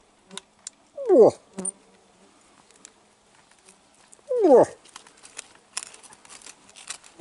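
Two short grunts from a rutting bull moose, each falling steeply in pitch, about three seconds apart.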